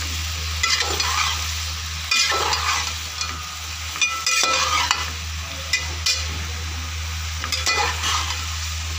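Chopped vegetables sizzling in hot oil in a metal cooking pot while a metal ladle stirs them, scraping and clinking against the pot every second or so. A steady low hum runs underneath.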